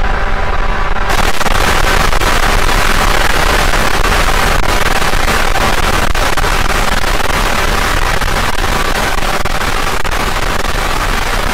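Harsh noise music: a loud, steady wall of dense crackling static. About a second in it turns brighter and fuller.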